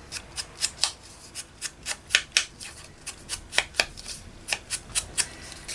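Ink pad dabbed and rubbed along the edges of a paper piece, an irregular run of short light taps and scuffs, about three or four a second.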